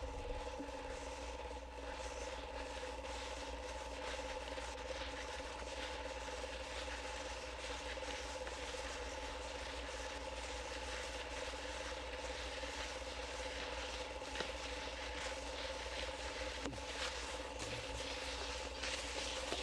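Steady electrical-sounding hum made of several fixed tones over an even hiss, with faint scattered clicks.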